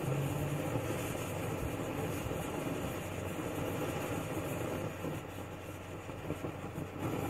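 MSR XGK EX white-gas expedition stove burning with its standard cap, no noise damper fitted, giving a steady rushing flame noise. Excess priming fuel is burning off as the stove starts to gasify.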